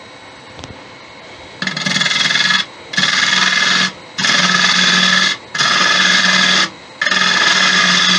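Turning gouge cutting spalted beech spinning on a wood lathe. It makes five rasping cutting passes of about a second each, with brief pauses between them, starting about a second and a half in.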